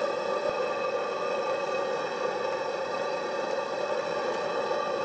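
Propane torch flame blowing steadily into the end of a copper bending pipe, making a constant rushing noise with steady tones running through it.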